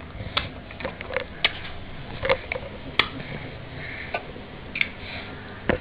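A baby sucking on a lemon wedge, with about ten irregular sharp lip smacks and mouth clicks over a low steady background.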